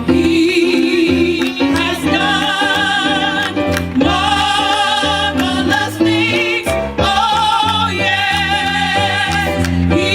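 Gospel group singing with wide vibrato over instrumental accompaniment: a steady bass line and regular percussion hits.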